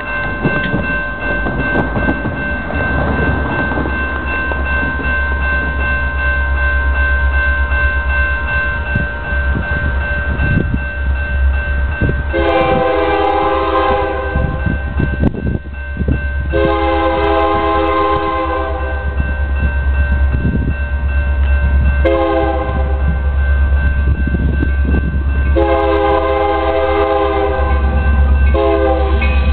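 Union Pacific diesel locomotive's multi-chime air horn sounding the grade-crossing signal: two long blasts, a short one, then a long one, starting about twelve seconds in, with another blast beginning near the end. Under it runs a steady low rumble.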